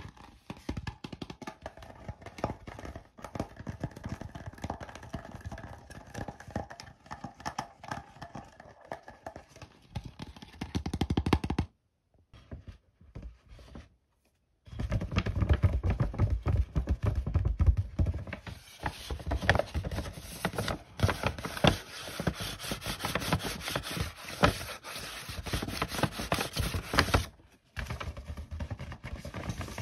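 Close ASMR handling sounds with dense crinkling, crackling and tapping. First a plastic bottle is squeezed and handled. About twelve seconds in, after a brief silence, a navy shopping bag is crinkled and rustled more loudly.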